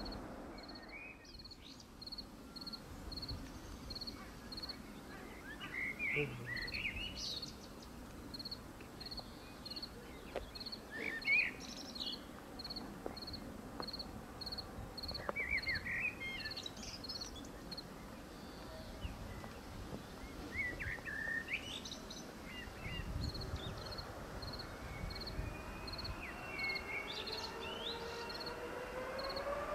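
Birds singing in short bursts every few seconds over a faint high chirp that repeats about once a second. Near the end a rising whine sets in as the Boeing 777F's GE90 engines spool up to takeoff power.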